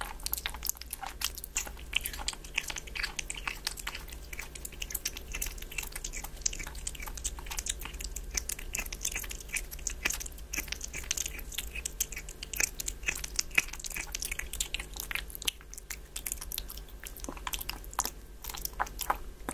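Kitten chewing raw meat and licking its lips, a close, continuous stream of small clicks and smacks.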